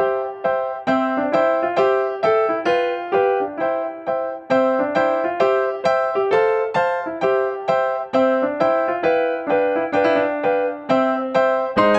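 Background piano music: a simple melody of evenly spaced struck notes, about three a second, each ringing and fading before the next.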